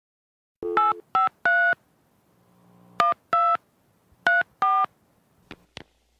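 Telephone keypad dialing tones: seven short two-tone beeps in three quick groups as a number is keyed in, followed by two short clicks near the end.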